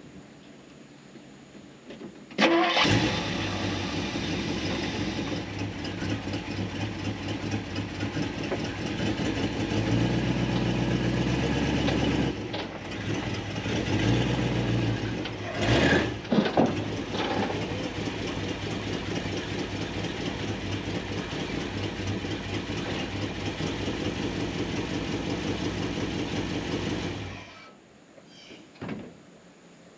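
A 1961 Mercury's engine is started about two and a half seconds in. It runs under load as the car is driven up onto the trailer, the revs rising in a couple of louder surges partway through, and it is shut off shortly before the end.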